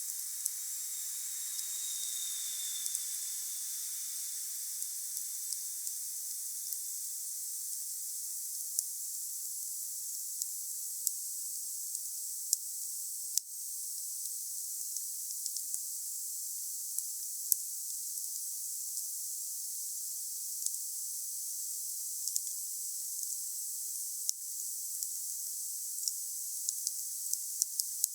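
Wood bonfire burning with a steady hiss and frequent sharp crackles and pops, irregular throughout. A faint high whistle sounds for a couple of seconds near the start.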